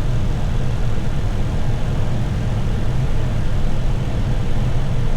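Steady low rumble inside the flight deck of an Airbus A321 on final approach with the landing gear down: airflow noise and the CFM56-5B engines, with no change in level.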